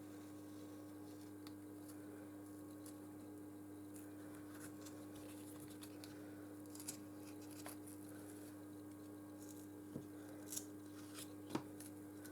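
Faint scratching and small clicks of a pry tool working a glued strip off a Nexus 6P's back, sharper clicks coming about ten seconds in as the adhesive gives way, over a steady low hum.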